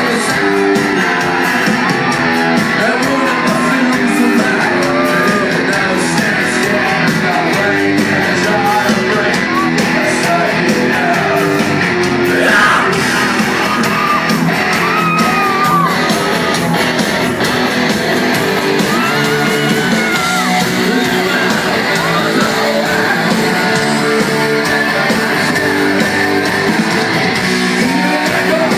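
Live rock band playing loud in a large hall: electric guitar with a man singing and shouting into the microphone.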